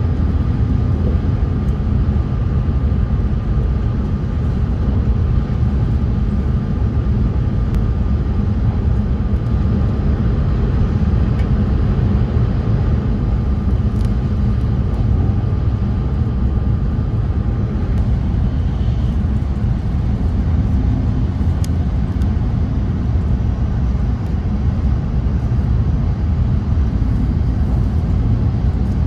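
Steady running noise of an E5/H5-series Shinkansen at speed, heard inside the passenger cabin: a low, even rumble. A faint steady whine runs along with it and fades out about two-thirds of the way through.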